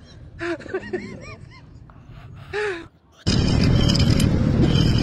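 A kitten gives several short, high mews that rise and fall in pitch. About three seconds in, a loud, steady outdoor rushing noise takes over abruptly.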